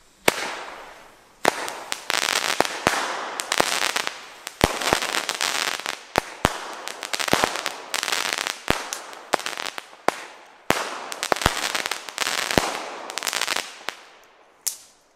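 Crackling firework battery (cake) firing shot after shot, each a sharp pop followed by about a second of dense crackling as the stars burst. About a dozen shots come in quick succession, with a final pop near the end.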